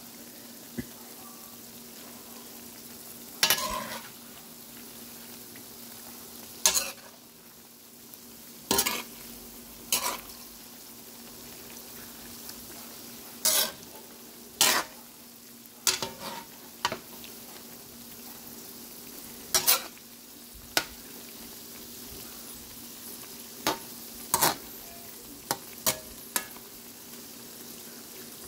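Flat fish balls and kikiam deep-frying in oil in a metal wok with a steady sizzle. A metal spatula stirs them, scraping and knocking against the wok in short strokes every second or two.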